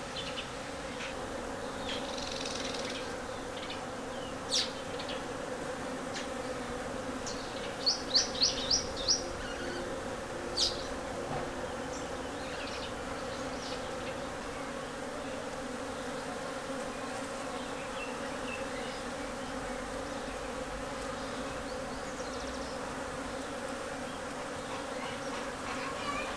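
Bees foraging on a flowering tree, their buzzing making a steady low hum. A few short high chirps sound over it, with a quick run of five about eight seconds in.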